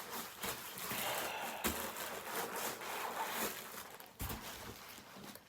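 Kitchen roll paper rustling and rubbing as it is handled and wiped, with a few sharp clicks.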